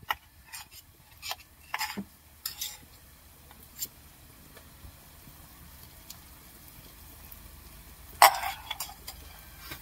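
A spoon clinking and knocking against a glass and a pan as crushed garlic and chilli are tipped in with browned onions. A faint sizzle of frying then grows, and there is one loud clank a little after eight seconds.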